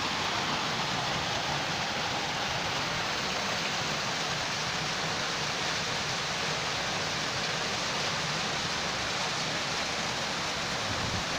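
Steady rushing of flowing water, an even hiss and rumble that does not let up.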